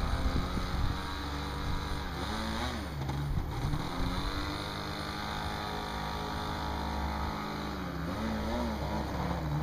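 A small engine running, its speed dropping and picking up again twice.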